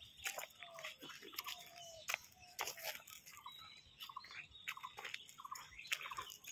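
Faint, irregular crunching footsteps on a gravel path covered in dry leaves, with short bird chirps now and then.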